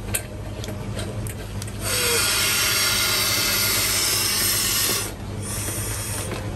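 Oxygen hissing into a fish transport bag as it is filled: a loud, steady hiss of about three seconds starting about two seconds in, then a shorter, thinner hiss near the end.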